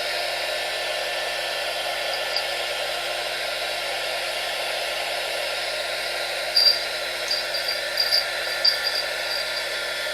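A small technical heat gun runs steadily, its fan blowing hot air, while it is used to shrink heat-shrink tubing. In the second half a few short, sharp ticks sound over the steady blowing.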